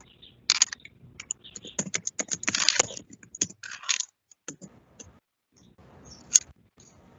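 Typing on a computer keyboard: irregular runs of keystroke clicks, thickest a couple of seconds in, with a sharper single click near the end.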